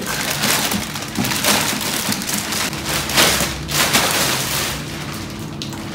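A thin clear plastic bag crinkling and rustling continuously as an air purifier is slid out of it and the wrapping is pulled off.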